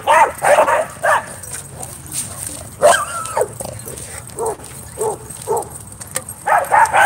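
Dogs barking: a quick run of barks, a longer drawn-out yelp about three seconds in, then single barks about twice a second and another quick run of barks near the end.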